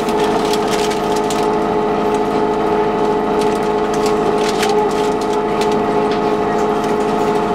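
STA transit bus #1801 running with a steady whine made of several pitches held together, the weird sound the bus is known for, along with scattered light clicks and rattles.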